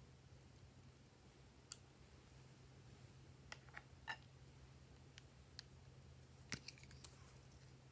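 Faint scattered clicks and snips of small scissors cutting lipstick, with plastic cosmetic cases clicking as they are handled, over a steady low hum.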